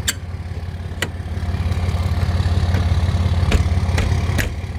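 Truck engine idling steadily, with five short sharp clicks or knocks spread over a few seconds.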